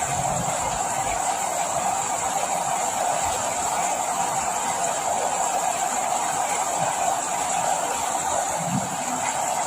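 Steady rain falling, an even hiss that holds level throughout without any change.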